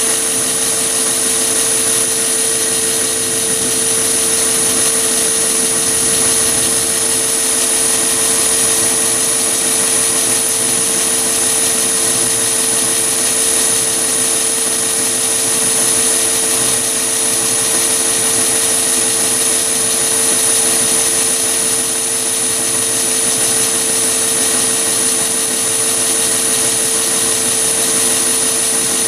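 Mini lathe running steadily with a steady whine, its spindle turning at about 615 rpm, while a four-flute end mill in the chuck mills a slot into a metal cylinder held in the toolpost vise.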